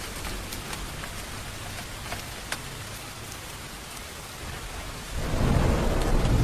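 Steady rain with single drops ticking close by. About five seconds in, a low rumble of thunder rolls in and grows louder toward the end.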